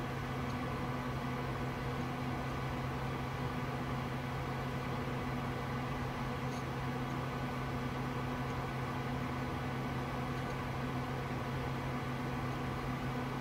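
Steady low hum with a hiss from a running desktop computer's cooling fans and power supply, unchanging throughout, with a few faint high ticks.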